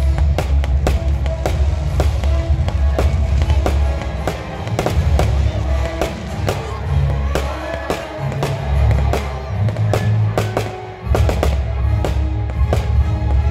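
Music with a heavy bass line plays through a fireworks display. Sharp bangs and crackles of bursting shells repeat throughout.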